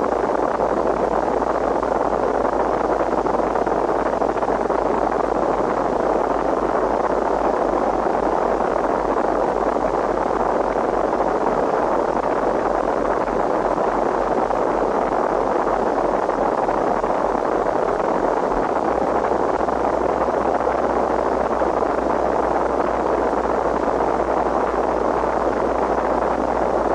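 Steady static hiss with a low hum beneath it, unchanging throughout: noise from a degraded VHS tape recording.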